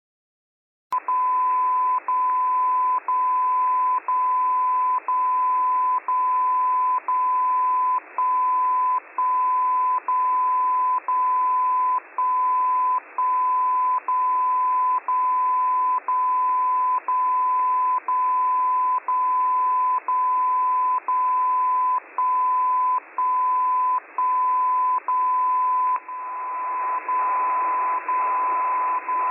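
Radio receiver audio: a steady beat tone about 1 kHz high over band-limited hiss, starting about a second in. The tone drops out briefly about once a second. The hiss grows louder near the end.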